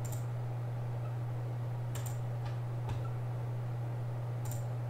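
Computer mouse clicking a handful of times, sharp single clicks spread through, over a steady low electrical hum.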